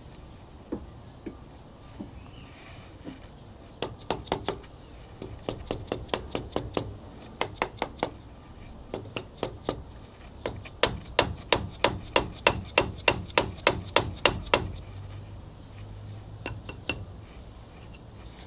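Mallet tapping the seized stud on the change-gear bracket (banjo) of an old South Bend lathe to drive it out. The sharp taps come in runs, loudest and about three a second in the second half, and stop a few seconds before the end.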